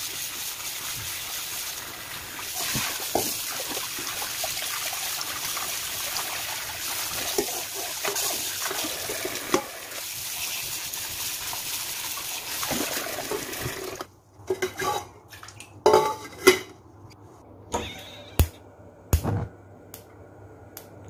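Kitchen tap water running steadily over sliced bitter melon in a stainless-steel bowl and mesh strainer as the pieces are rinsed by hand. The water stops suddenly about two-thirds of the way through, followed by a string of sharp knocks and clatters.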